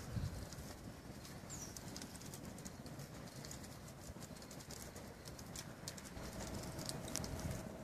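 Open wood fire crackling, with many small sharp snaps at irregular intervals over a low rumble. A faint steady hum joins about six seconds in.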